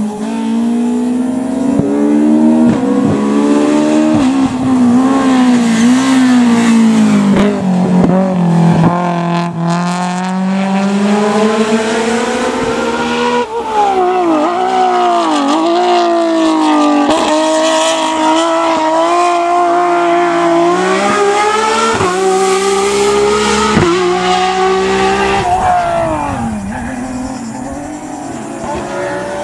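Race car engines at full throttle on a hillclimb, revving up and dropping back with each gear change. The engine note changes abruptly about halfway through.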